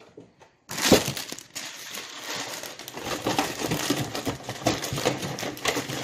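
Plastic cereal-bag liner being handled, with a bump about a second in and then continuous crinkling and rustling.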